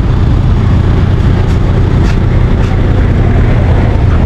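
A vehicle on the move: a loud, steady low engine and road rumble, with a few faint ticks or rattles over it.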